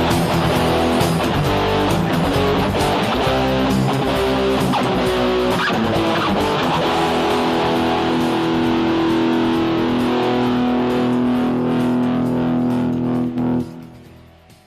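Instrumental close of a rock song, with electric guitar strumming over bass and a beat, ending on a long held chord that stops abruptly near the end and rings away.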